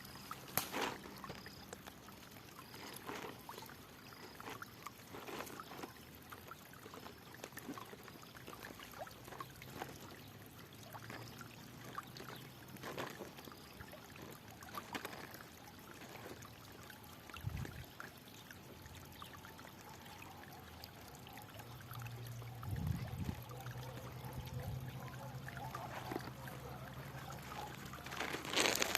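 Water flowing and trickling, with small irregular splashes throughout and a louder splash near the start and again at the end. A low steady hum joins in during the last few seconds.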